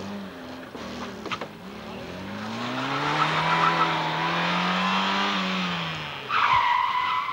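Small hatchback's engine revving up as it accelerates through a cone course, holding high revs, then easing off. Near the end the tyres squeal loudly for about a second as the car turns.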